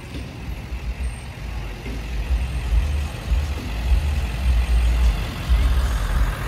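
Aiga bus engine rumbling and growing steadily louder as the bus draws up close, with traffic noise from the road.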